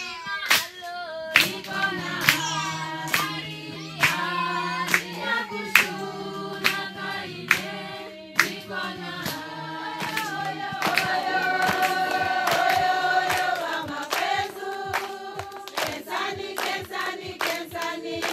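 A congregation singing together in chorus, with hand claps keeping the beat a little faster than once a second.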